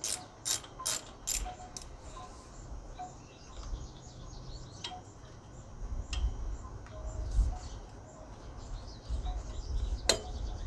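Hand socket ratchet clicking about twice a second for the first two seconds as a bolt is worked loose, then scattered single clicks and knocks, with one sharp click near the end.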